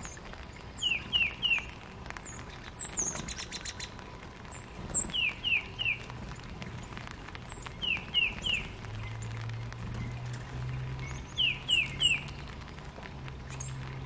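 Songbirds singing and calling: a phrase of three clear down-slurred whistles repeated four times, a few seconds apart, with thin high chip notes and a short buzzy trill in between.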